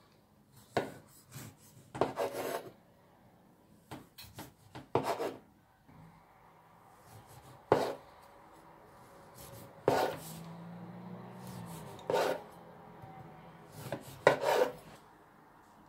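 Serrated bread knife sawing through a baked cake loaf, cutting it into rusk slices: a scattered series of short rasping strokes and knocks against the wooden worktop, one every second or two.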